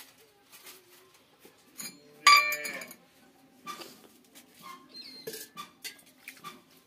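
Stainless-steel kitchen utensils clinking. There is one loud ringing clink about two seconds in, then scattered light knocks and clicks.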